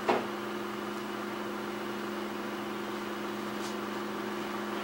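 Steady electric hum with a faint hiss, typical of a running electric fan motor, with a brief knock right at the start.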